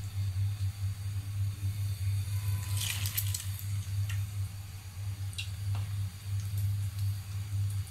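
Soft wet squishing of bread slices being pressed into beaten egg in a bowl, with a short burst of crackling about three seconds in from slices frying in hot oil. A steady low hum runs underneath throughout.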